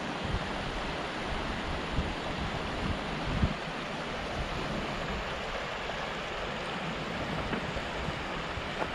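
Shallow mountain stream running over rocks, a steady rush, with wind buffeting the microphone in low, uneven rumbles.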